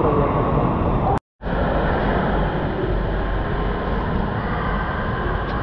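Steady, loud din of an indoor water park hall: rushing water and echoing background noise, cut to silence for a moment just over a second in.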